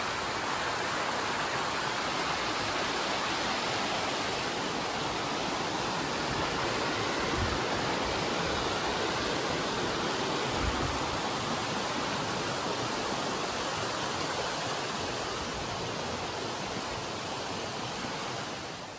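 Mountain creek rushing over rocks, a steady wash of water noise, with a couple of soft low thumps partway through. The rush dies down near the end.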